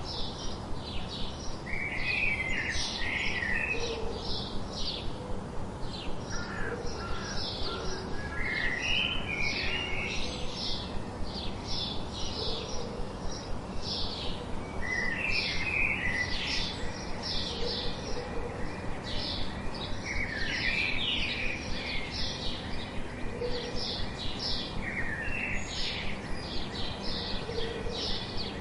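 Songbirds calling: a steady run of short high chirps, with a lower warbled phrase repeated about every six seconds.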